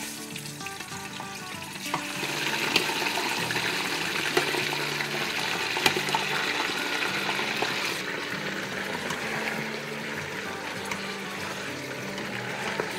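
Raw bone-in mutton sizzling as it fries in hot oil in an Instant Pot on sauté mode. The sizzle grows louder about two seconds in as more meat goes in, with a few light knocks of the tongs.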